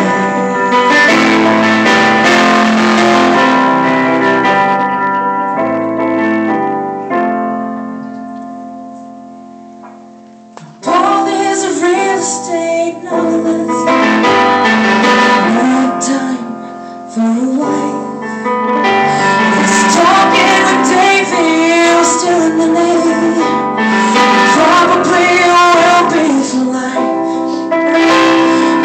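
Live singing with keyboard accompaniment. Keyboard chords ring on and fade away on a held chord, then about eleven seconds in the keyboard comes back in and a voice starts singing over it.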